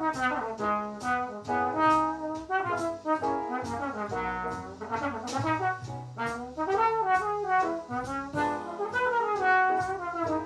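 Trombone playing a jazz étude in B major, a quick line of short notes over accompaniment with held bass notes and a steady tick about twice a second.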